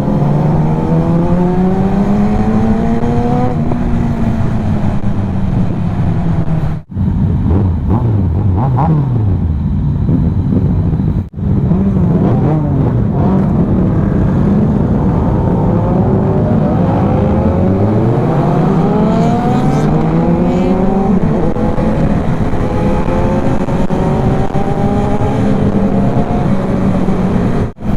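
Motorcycle engine under hard acceleration on the road, its pitch climbing and falling as it runs up through the gears, with wind rush. The sound drops out for an instant twice, about a quarter and about two fifths of the way in.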